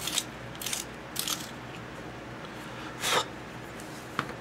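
A Derwent Coloursoft coloured pencil being turned in a small handheld sharpener: short scrapes about twice a second as the blade shaves the wood and wax core. They stop about a second and a half in, and are followed by one louder scrape about three seconds in and a short click near the end.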